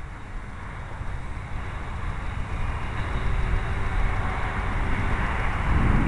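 Wind buffeting the microphone in low gusty rumbles under a steady rushing hiss that slowly grows louder.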